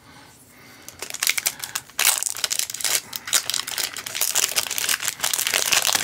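Foil wrapper of an Upper Deck hockey card pack crinkling and tearing as it is ripped open by hand. A dense crackle starts about a second in and gets louder about two seconds in.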